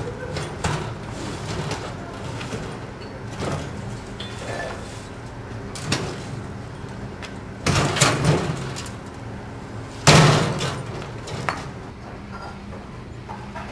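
Two-wheeled wooden handcart being tipped to dump coal on a brick-kiln floor, then wheeled away: scattered rattles and knocks of the cart, a cluster of heavy knocks about eight seconds in, and the loudest bang about ten seconds in, which dies away over a second.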